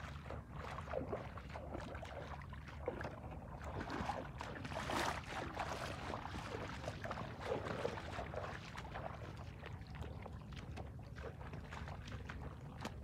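Bare feet squelching and splashing through soft mud and shallow water, with irregular wet slaps as hands dig in the mud, and a bigger splash about five seconds in. A steady low rumble runs underneath.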